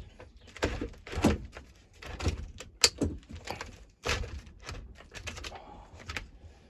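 Irregular knocks and clicks of a screwdriver working the T25 screws out of the hedge trimmer's plastic top cover, with one sharp click about three seconds in.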